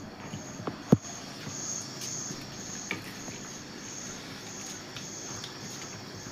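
A cricket chirping steadily in the background, a high pulsed chirp about twice a second, with a sharp clink of tableware about a second in.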